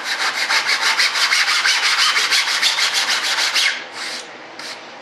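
Sanding block rubbed quickly back and forth over a foam rudder piece, about eight short strokes a second. The steady stroking stops a little before four seconds in, followed by a couple of single strokes.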